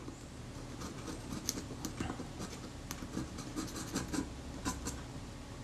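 Scalpel blade scraping old leatherette adhesive off a Kodak Retina IIIS's metal body, heard as a run of short, irregular scratches.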